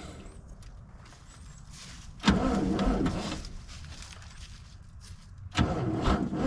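Starter on a 1960s GMC dump truck's 401 V6 bumped in short bursts, cranking the engine twice for about a second each time, about two seconds in and again near the end.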